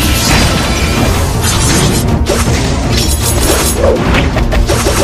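Loud dramatic soundtrack music with martial-arts fight sound effects over it: several sudden crashing impacts and whooshes.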